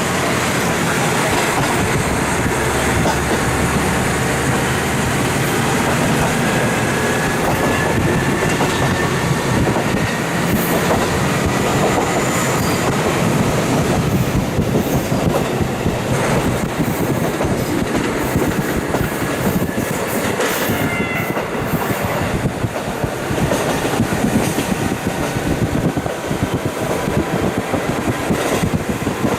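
KiHa 40 diesel railcar running along the line, heard through a wide-open window: a steady loud rumble of wheels on rail and the diesel engine. A faint high whine rises now and then, and there are sharp knocks in the second half.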